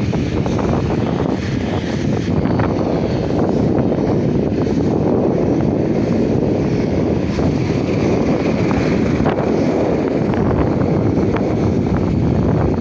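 Wind buffeting the microphone of a camera on a moving road bike: a loud, steady rumble of rushing air, with a few faint ticks.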